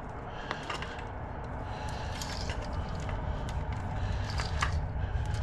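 Battery charger's cord being handled and uncoiled, with light scrapes and scattered clicks over a steady low rumble.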